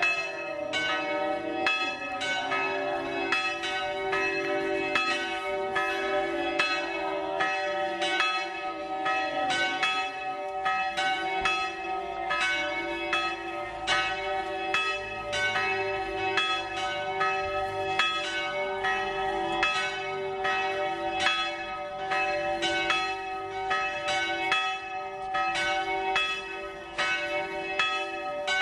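Church bells ringing without pause, many quick strokes overlapping into a continuous peal.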